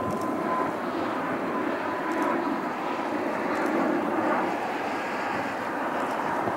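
Gulfstream business jet on final approach with landing gear down: the steady rush of its twin turbofan engines, with a faint high whine.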